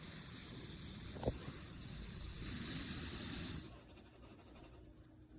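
Butane torch hissing steadily, louder for about a second before the gas cuts off abruptly, with a faint tap just after a second in.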